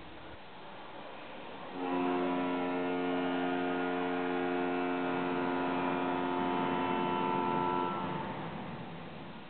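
A ship's whistle blowing one long blast, a steady chord of several tones that starts suddenly about two seconds in and fades away near the end, over a low hum.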